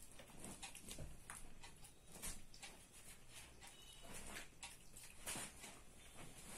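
Faint rustling and light scattered clicks of a dog nosing and pushing a cloth against a plastic tub of rotis, burying its food.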